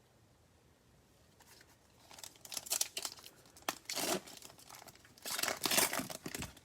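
A Prizm baseball card pack's wrapper being torn open and crinkled, in several crackling rustles starting about two seconds in.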